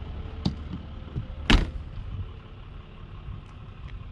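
A light click, then one sharp thump about a second and a half in, over a steady low rumble of wind on the microphone: a light aircraft's cabin door being shut.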